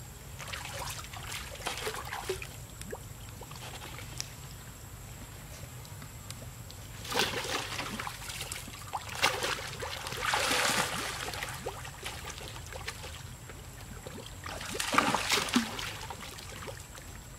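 Water splashing and sloshing in a pool as macaques swim and scramble at its stone edge. It comes in several bursts, the loudest about seven, ten and fifteen seconds in.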